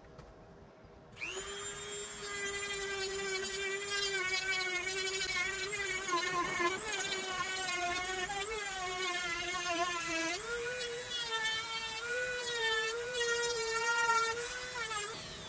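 Corded Dremel rotary tool whining as it smooths and bevels the cut edges of a sunroof frame. It starts about a second in, its pitch wavering as the bit bites and eases, steps up to a higher pitch about ten seconds in, and cuts off just before the end.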